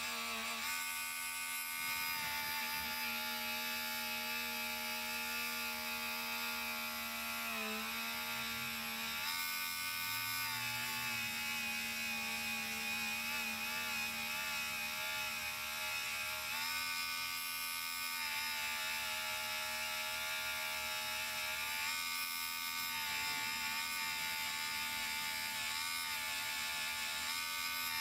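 Small handheld rotary tool from a Harbor Freight kit whirring steadily as its felt polishing wheel buffs a gold grill; the whine shifts in pitch a few times as the wheel works the metal.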